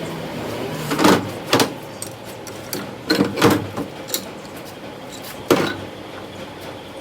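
Irregular sharp metal clanks and knocks, about six in all, the loudest about a second in and around three and a half seconds in, from metal parts and tools being handled during a starter gear carrier repair.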